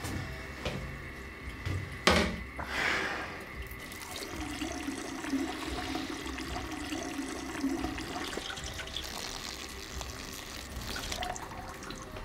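A sharp knock about two seconds in, then a man's urine stream splashing into a toilet bowl for about four seconds.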